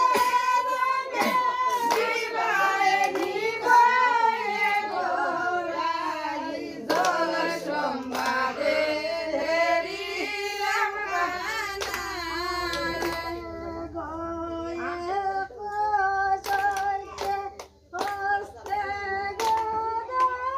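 Women singing a song together, with hand claps.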